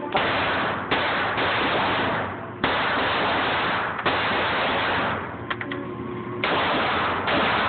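Glock 19 9mm pistol fired in slow single shots, about six in all, one to two seconds apart, each crack followed by a long echoing tail off the concrete walls of an indoor range.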